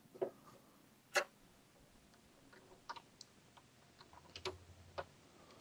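Scattered light clicks and taps as the last Allen bolt of the windscreen is fitted, with one sharper click about a second in.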